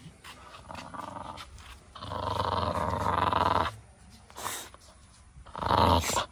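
A puppy growling as it bites and hangs on a rope: one long growl about two seconds in, then a shorter one near the end.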